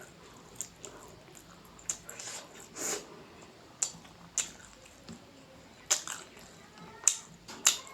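Close-miked eating sounds: a person chewing with irregular wet mouth smacks and sharp clicks, some much louder than others.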